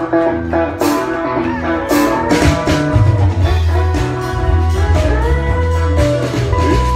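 Live country band playing: electric guitar lines over bass and a steady drum beat.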